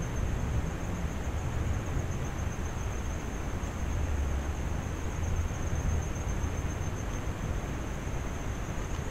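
Wind rumbling and hissing steadily on the microphone, with a constant high, thin whine.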